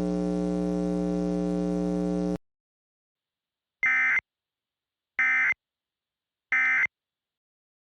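A steady low buzzing tone that cuts off sharply after about two and a half seconds. After a pause come three short, identical screechy data bursts, about a second and a quarter apart: the Emergency Alert System end-of-message (EOM) tones that close an alert.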